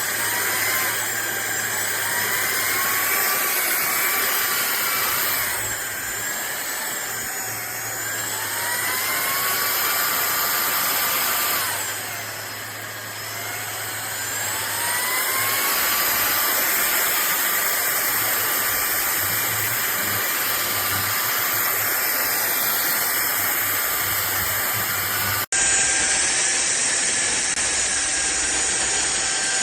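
Cordless stick vacuum cleaner running, its motor whine rising and falling in pitch. It breaks off abruptly near the end and resumes as a steadier whine.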